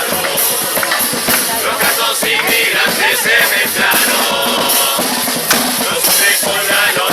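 Murga performing: a chorus of voices singing over carnival percussion with a bass drum and crashing cymbals.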